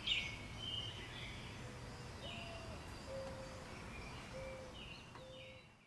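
Birds calling in woodland: a few short, high chirps in the first second, then a string of four or five short, even, lower notes about a second apart, over a steady low background rumble. The sound fades out at the very end.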